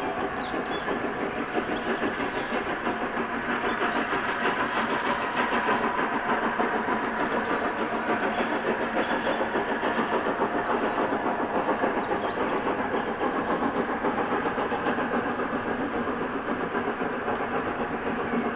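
Steam locomotive working hard as it pulls a train away, a steady rhythmic chuffing of its exhaust heard from a distance.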